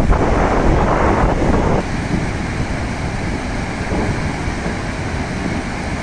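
Flash-flood torrent of muddy water rushing down a river channel, a loud steady roar with wind buffeting the microphone. The roar drops a little about two seconds in and then holds even.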